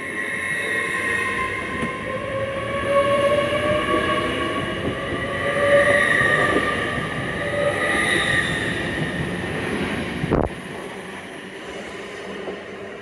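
Class 802 bi-mode express train running past and pulling away, its wheels and running gear giving several steady high whining tones as the coaches go by, then fading as it draws off. A sharp thump about ten seconds in.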